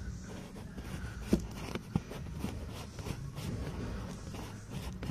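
Screwdriver turning a small screw in a plastic heater housing: faint scraping and creaking, with two sharp clicks about one and a half and two seconds in.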